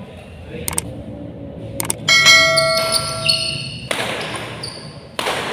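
Badminton rally: a few sharp racket hits on the shuttlecock, echoing in a large hall, with a ringing, bell-like ding about two seconds in.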